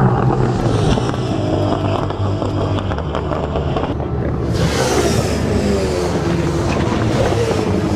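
V8 Supercar racing engines running hard as the cars pass, the pitch falling as they go by. The sound changes abruptly about halfway through.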